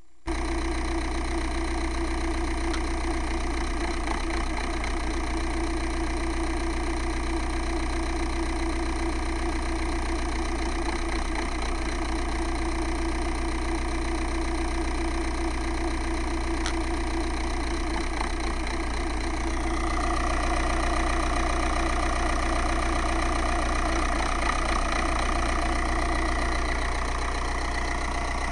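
Volkswagen ALH 1.9 TDI four-cylinder diesel idling on its first start after a cylinder head install. About twenty seconds in it picks up and runs a little louder for several seconds, then settles back near the end: a surging idle.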